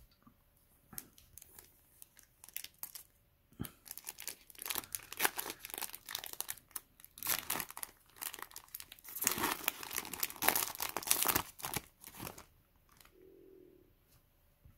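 A foil trading-card booster pack wrapper crinkling and being torn open: a dense run of crackles that is loudest in the middle and stops about two seconds before the end.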